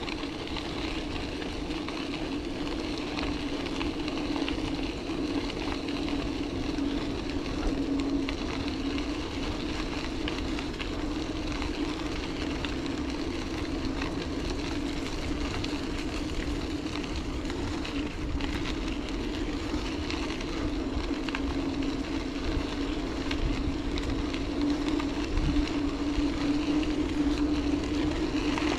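Bicycle in motion: steady tyre rolling noise with a constant low hum. The hum gets a little louder near the end.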